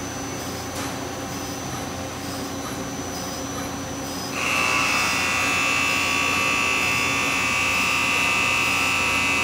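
Miyano BNC-34A CNC lathe running as the tool turns a metal part, a steady machine hum; about halfway through, a steady high-pitched whine sets in and the sound gets louder.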